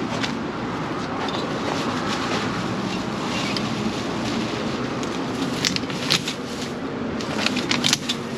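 Litter being handled and picked up: crinkling and sharp clicks of plastic and paper, thickest in the last few seconds, over a steady background hiss.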